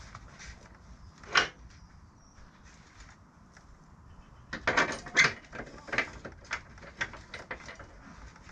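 Scattered clicks and knocks of parts and tools being handled while a motorcycle wheel is refitted: one sharp knock about a second and a half in, then a run of quick knocks and clatters from about halfway through.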